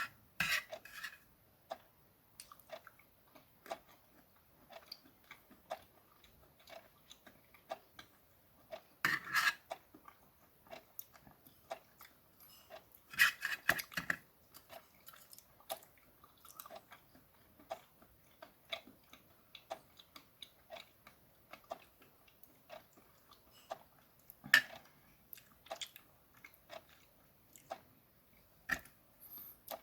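A person chewing raw oysters: a steady run of small wet clicks and mouth sounds, with a few louder bursts about 9, 13 and 24 seconds in.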